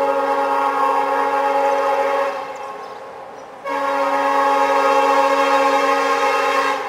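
Norfolk Southern diesel locomotive's air horn sounding two long chime blasts of several notes at once, for the grade crossing as the train approaches.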